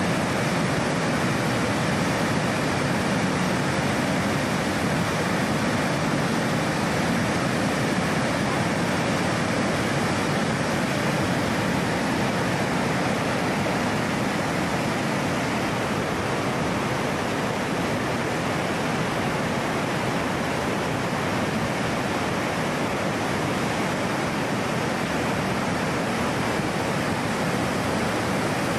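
A river in flood: fast, muddy water churning through standing waves and rapids, making a steady rushing noise that does not let up.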